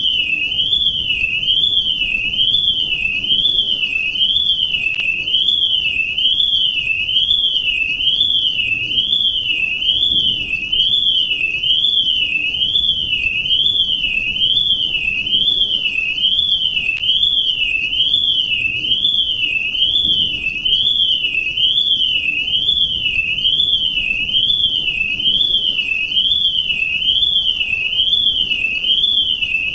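Electronic alarm tone: a loud, high whistling tone sweeping evenly up and down, a little more than once a second, without a break.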